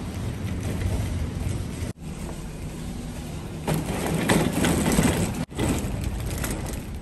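Wire shopping trolley being pushed along, its wheels and basket rattling on the pavement, loudest in the middle of the stretch.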